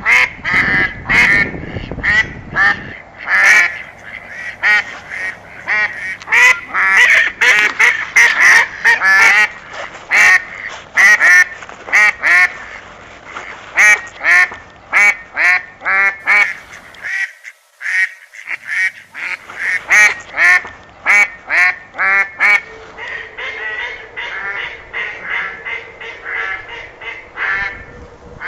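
A flock of geese honking, many short calls overlapping in quick succession, with a brief lull about two-thirds of the way through.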